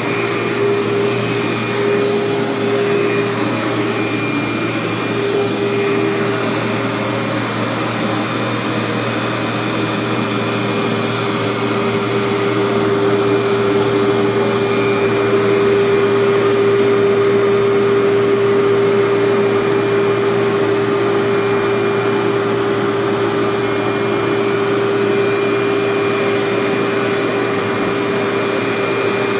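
Workhorse vacuum running continuously as it is worked over carpet: a steady motor whine with a strong held hum, getting slightly louder midway.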